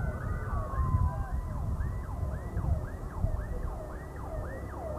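Electronic siren yelping: a fast rising-and-falling wail, about three sweeps a second, heard over the low rumble of a large crowd. A steady high siren tone slides down in pitch and fades about a second in.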